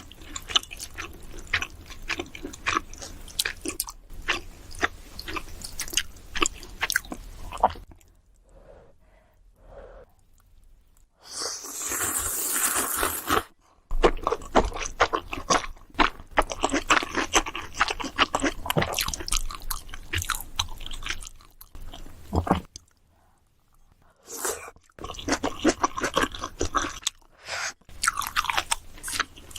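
Close-miked chewing and crunching of food in a mukbang of pork kimchi stew with ramen noodles and leaf-wrapped rice, with many small wet mouth clicks. There are two brief pauses, and a louder continuous noisy sound lasting a couple of seconds near the middle.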